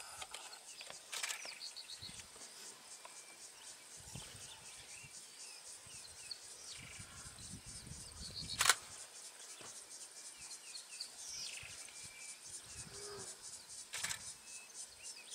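Insects trilling steadily and birds chirping, broken by three sharp clicks: about a second in, near the middle, and near the end.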